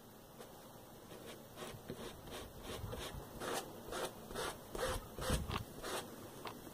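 Short scratchy strokes, about two a second and louder in the second half, as fingers pick at a sticker stencil and peel it off sock fabric stretched over a photo frame.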